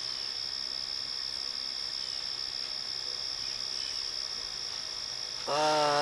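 A steady, high-pitched chorus of crickets chirring without a break. Near the end, a man's voice comes in with a long, falling drawn-out sound.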